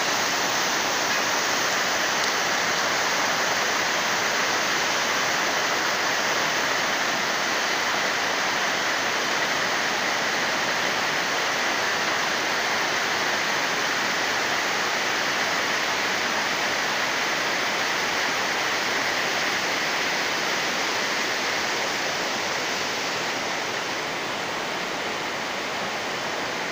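Mountain river rushing over rocks and rapids: a steady, loud roar of white water that eases slightly near the end.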